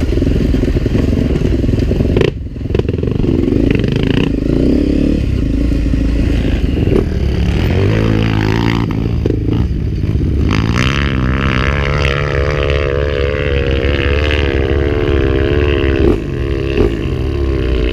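Dirt bike engine running hard, its pitch rising and falling again and again through the second half as the throttle is worked, with a brief drop in engine noise about two seconds in.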